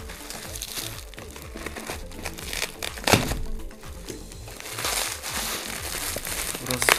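Clear plastic wrapping film crinkling and cardboard rustling as a taped parcel is cut and pulled open by hand, with a sharper crackle about three seconds in. Quiet background music runs underneath.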